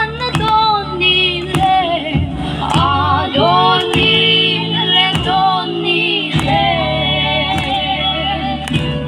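A song sung by several voices over a steady accompaniment, with sharp beats or claps at uneven intervals.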